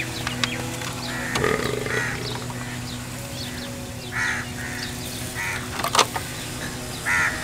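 Crows cawing: about six short, harsh calls, some in pairs, over a steady low hum, with a sharp click about six seconds in.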